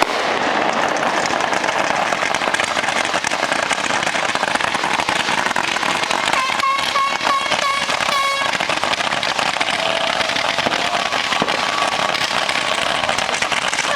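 Fireworks crackling densely and without a break. About halfway through, a pitched whistle pulses several times over a couple of seconds.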